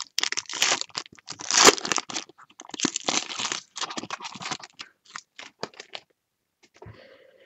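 A foil pack of 2015 Topps Finest baseball cards being torn open: crackly tearing and crinkling of the wrapper, thinning to scattered crackles and stopping about six seconds in.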